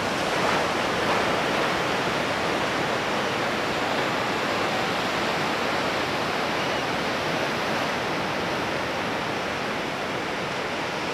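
Ocean surf breaking, a steady rushing wash of waves with no break in it.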